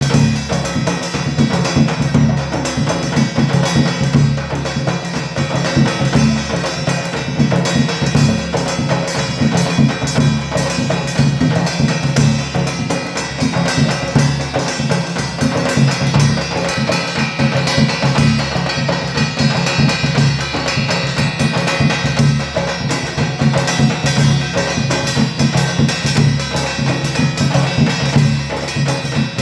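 Dhol and thali played together in a continuous, fast rhythm: deep, booming strokes on the barrel drum under the ringing clatter of a brass plate struck with a stick.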